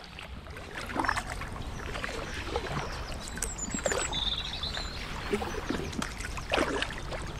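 Paddle strokes from a drop-stitch inflatable kayak: the blade dips and splashes in the water at an irregular rate, about one splash a second or so.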